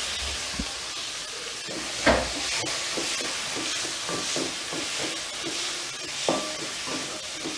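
Tomatoes and onions sizzling in hot oil in a metal kadai while a spatula stirs and scrapes them. There is a sharp knock of the spatula against the pan about two seconds in and another near the end.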